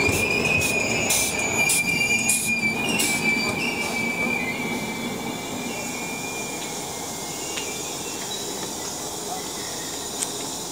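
Arriving passenger train slowing at a platform: a steady high-pitched squeal from the wheels and brakes, with a few loud knocks in the first three seconds. The squeal fades after about four seconds into a quieter steady rumble as the coaches roll on slowly.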